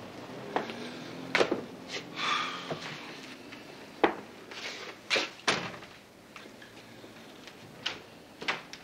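Footsteps on a hard floor and scattered sharp knocks and clicks in a quiet room, the loudest about four seconds in and twice about five seconds in, with a short wavering creak about two seconds in.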